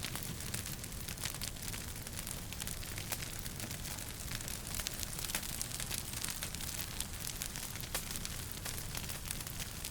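Wood fire burning in a fireplace, crackling with many irregular sharp pops over a steady low rumble of the flames.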